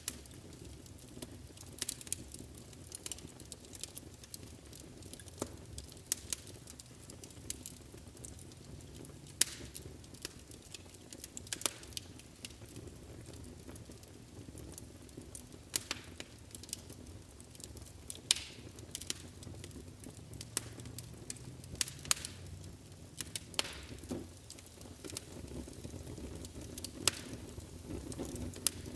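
Wood fire burning in a fireplace, with a low rumble of flames and sharp crackles and pops that come at irregular intervals.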